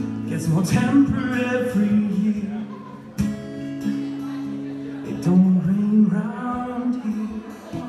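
A man singing a song to his own strummed acoustic guitar, performed live.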